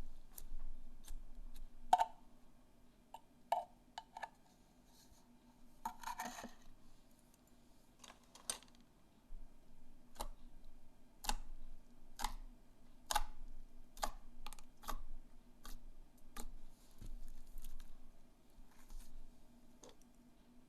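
Slime being handled and poked, giving irregular sharp clicks and pops about once a second, with a short crackly squish about six seconds in.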